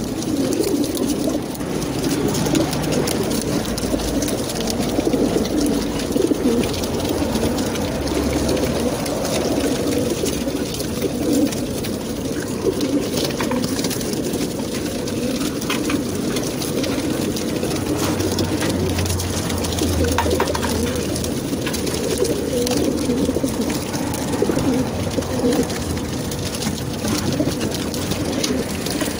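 Many racing pigeons cooing together inside the crates of a pigeon transport trailer, a steady dense chorus, with a few light knocks here and there.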